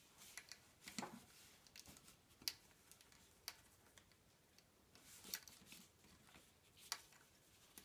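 Faint, scattered clicks and scrapes of picture-hanging wire being pulled tight through the frame's hanging hardware, coming at irregular intervals.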